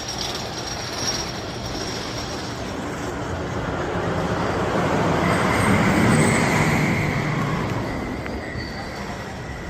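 Wooden roller coaster train running on its track, its rumble building to a peak about six seconds in and then fading, with a high wheel squeal near the peak.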